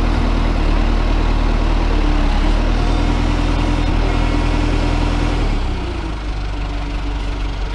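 1994 JCB 214 backhoe loader's four-cylinder diesel engine running steadily. About five and a half seconds in, its speed drops and it runs quieter.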